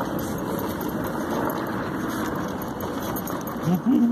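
Mobility scooter running steadily along the promenade, an even noise with no change in pace. A short wavering voice sound comes in near the end.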